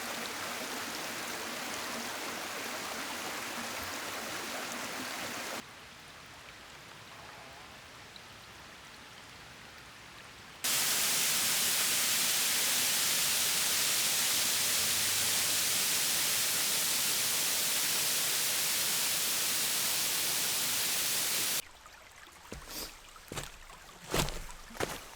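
Steady rush of flowing stream water, cut between three shots of different loudness, the third the loudest and hissiest. Near the end the water gives way to a few sharp scattered clicks and knocks.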